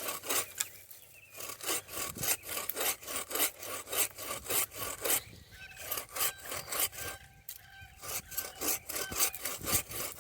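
Hand pruning saw cutting through an apple-tree branch in quick, even back-and-forth strokes, about three a second.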